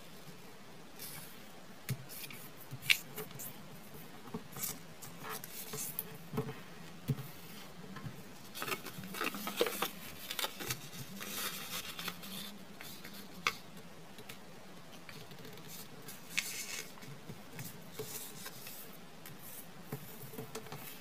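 Origami paper being folded and creased by hand on a wooden tabletop: scattered crinkles, rustles and light taps, with a sharp tap about three seconds in. A busier stretch of crackly rustling follows around the middle as the sheet is opened and turned.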